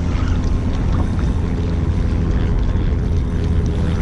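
Steady low rumble of a boat's motor running, with wind buffeting the microphone.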